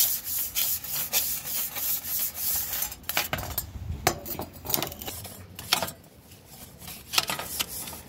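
A grill brush scraping grill grates in quick back-and-forth strokes, about two or three a second at first, then fewer and more spaced out in the second half.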